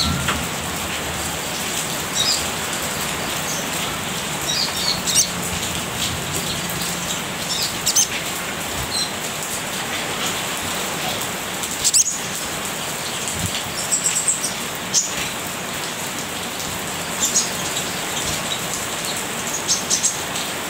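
Olive-backed sunbird giving short, high-pitched chirps and twitters every second or two, the scattered calls of a bird just beginning to sing, over a steady hiss.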